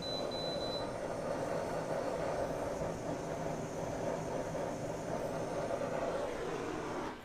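Handheld kitchen blowtorch burning with a steady rushing flame as it caramelizes sugar sprinkled on banana; it cuts off near the end.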